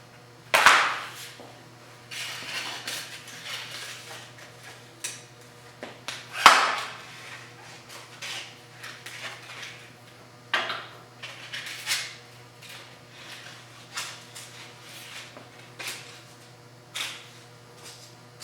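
Metal knocks, clanks and scraping from a homemade belt grinder's tension arm, wheels and belt being handled during a belt change. Two loud knocks, about half a second and six and a half seconds in, with lighter knocks and rubbing between them.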